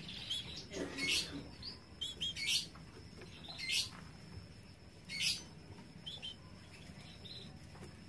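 Caged canaries calling: a few soft, short chirps and four louder, harsh bursts spread over the first five or so seconds.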